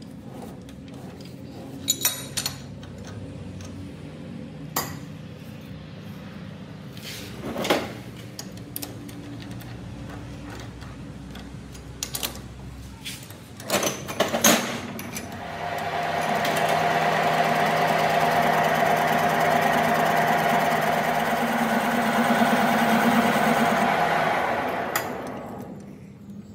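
Metal tools and parts clinking and knocking a handful of times, then a workshop power tool spinning up and running steadily for about nine seconds before winding down.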